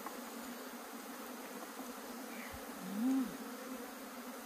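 Honeybees buzzing in a steady drone around an opened hive: the colony is disturbed while its honeycomb is being taken out. About three seconds in, a louder tone swells, rising and then falling in pitch.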